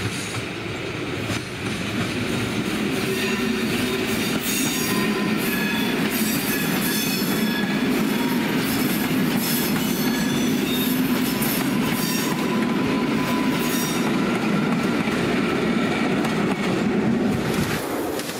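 Electric multiple unit passing close by, a steady rumble of wheels on rail with scattered clicks over the rail joints and faint squealing tones from the wheels.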